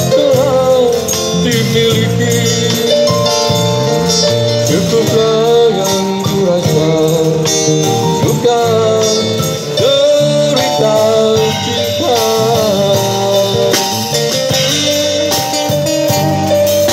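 A male singer singing into a microphone over a live band of drum kit, electric bass and keyboard, played through a small amplified PA.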